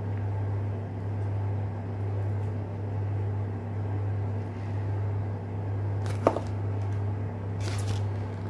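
Paper instruction booklet being handled and its pages turned: a sharp click about six seconds in and a short papery rustle near the end, over a steady low hum.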